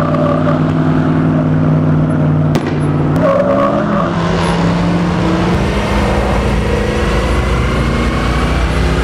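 Ford F-150 pickup doing a burnout: its engine is held at high revs while the rear tyres spin in place. The engine note steps up slightly about three seconds in.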